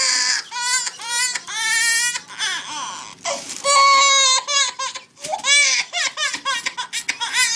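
Baby of about four months crying hard in pain after his vaccination shots: long, high-pitched wavering wails broken by gasps, turning to shorter, choppier sobs in the second half.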